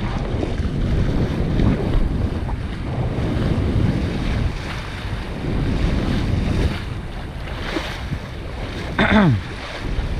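Wind buffeting the microphone over rushing water, in gusts. About nine seconds in, a brief voice-like cry falls in pitch.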